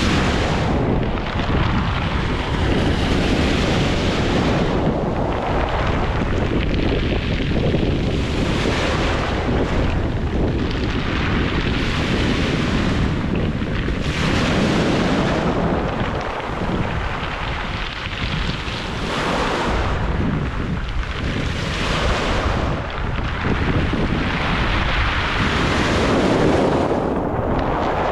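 Waves surging up and drawing back over a beach of rounded stones, each surge bringing a hissing clatter of stones rattling against one another every few seconds, with wind rumbling on the microphone.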